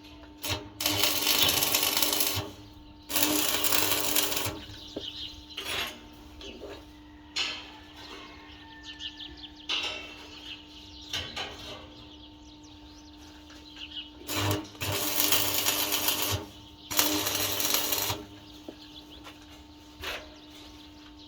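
Metalworking in a workshop: four loud hissing bursts of one to two seconds each, with knocks and clinks of metal between them, over a steady hum.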